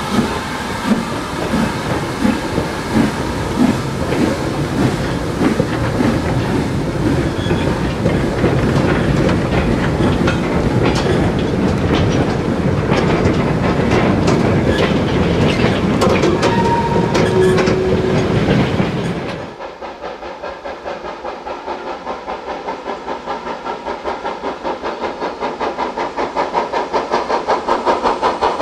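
A rake of vintage goods wagons rolls past on jointed track, rumbling and clattering in a rhythm over the rail joints, with a brief squeal near the middle. After a sudden change, a steam locomotive's exhaust beats come in evenly at about two to three a second and grow louder as it approaches.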